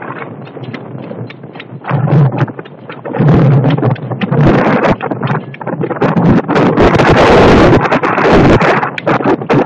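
Strong wind buffeting the microphone in gusts, growing much louder about two seconds in, with many short pops and rumbles as it hits the mic.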